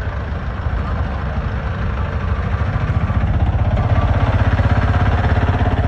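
A vehicle engine running close by, growing louder about halfway through and easing slightly near the end.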